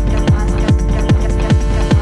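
Electronic background music: a steady kick drum, about two and a half beats a second, over held synth tones.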